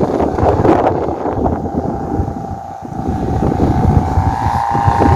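Strong wind buffeting the microphone. From about one and a half seconds in, a steady humming tone comes from the flying gapangan kite, growing stronger near the end.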